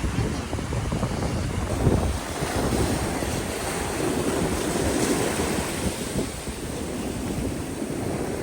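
Ocean surf washing onto a beach, with wind buffeting the microphone, heaviest in the first couple of seconds.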